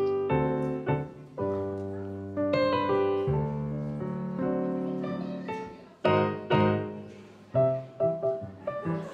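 Background instrumental music: slow held chords, turning to shorter separate notes about six seconds in.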